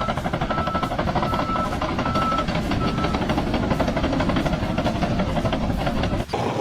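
Rapid, steady mechanical clatter, with a short high beep repeating about every 0.7 seconds through the first three seconds. The clatter breaks off briefly near the end.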